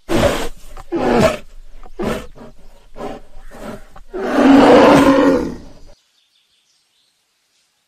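An animal's rough calls: several short ones in quick succession, then one longer, louder call about four seconds in that stops abruptly near six seconds.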